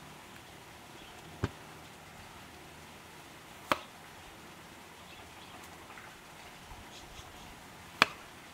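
A kitchen knife knocking sharply on a wooden cutting board three times while a tomato is sliced, the last knock the loudest.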